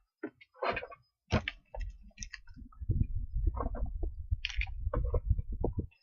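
Small items, pin-back buttons, pins and magnets, being tossed back into a box: scattered clicks and clatters, then from about halfway a denser run of rattling and low handling thumps.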